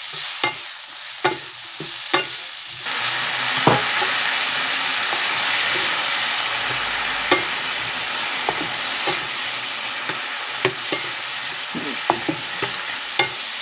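Okra and onion frying in a frying pan: a steady sizzle, with a spatula stirring and knocking against the pan a dozen times. About three seconds in the sizzle grows much louder as the pan turns wet with liquid.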